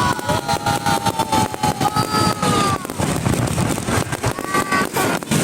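Fireworks going off close by: a dense crackle of small bangs with long, slightly falling whistles over it in the first half and again briefly near the end. It is loud.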